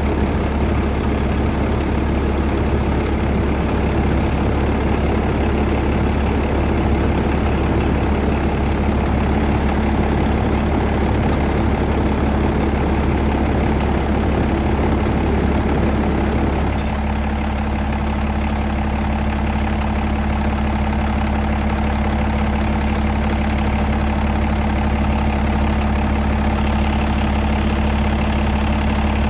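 Peterbilt 389 truck's diesel engine idling steadily, with a rougher mid-range layer dropping away about two-thirds of the way through.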